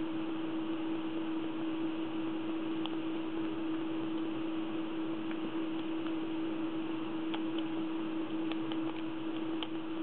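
Steady hiss and hum, with a handful of faint metallic ticks, most of them in the second half: a dimple pick touching the pins inside a Lince C4 ten-pin dimple lock cylinder while it is picked.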